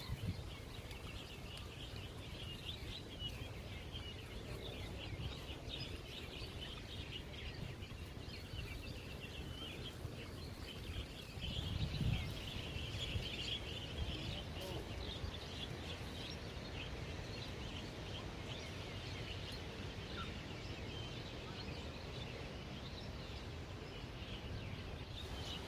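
A dense chorus of many small birds chirping, over a low rumble of wind on the microphone, with one louder gust or bump about halfway through.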